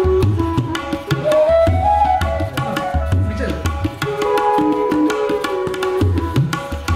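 Background music: hand drums playing a quick, busy rhythm with low notes that bend in pitch, under a melody line that holds and glides between notes.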